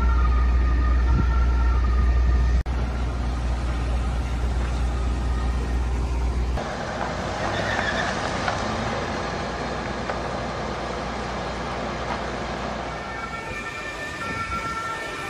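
Distant emergency-vehicle siren sounding in alternating tones over a heavy low rumble. The rumble stops abruptly about seven seconds in, leaving a steady rushing noise, and the siren tones return near the end.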